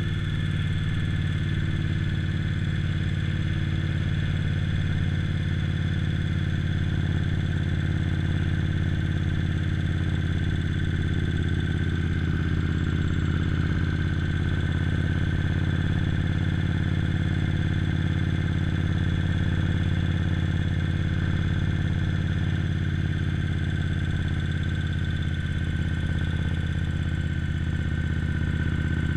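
Indian Scout motorcycle's V-twin engine running at a steady cruise, with no change in pitch or loudness.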